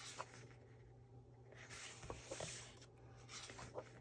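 Faint rustle and slide of a paper coloring book's page being turned and smoothed flat, in two soft stretches of about a second each, with a few light taps.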